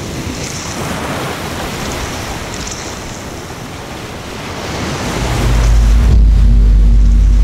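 Waves washing over a pebble shore, a steady surf hiss. About five seconds in a deep, steady low drone swells in and becomes the loudest sound.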